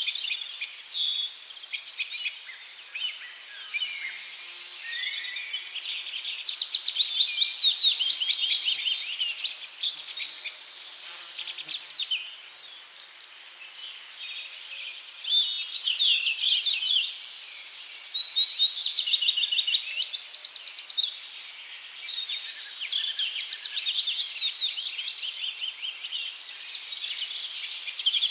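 Several small songbirds chirping and trilling together in fast, high, overlapping phrases. The chorus swells twice and thins out briefly in the middle.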